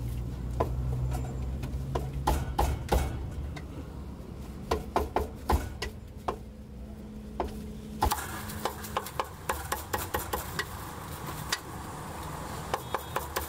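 Cleaver chopping crispy roast pork belly on a round wooden chopping block: sharp, irregular chops, then quicker, lighter chops after about eight seconds.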